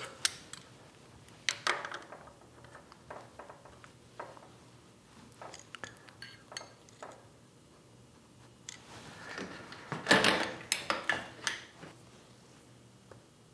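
Scattered metal clinks and clicks of hand tools being handled on a steel milling machine table, as a dial test indicator on its clamp-on holder is fitted in place. A louder run of clatters comes about ten seconds in.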